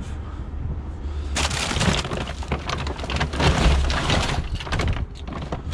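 Rummaging through a pile of discarded plastic toys and junk: dense clattering and crackling that starts about a second and a half in.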